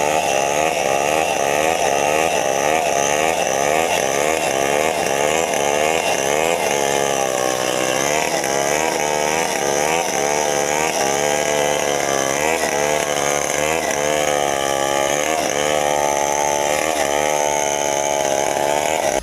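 Two-stroke chainsaw running under load while cutting wood, its engine pitch rising and dipping again and again as the chain bites into the wood. It cuts off sharply at the end.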